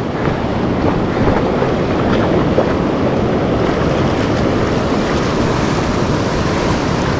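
Waves washing through shallow surf at the water's edge, a steady rushing wash, with wind buffeting the microphone.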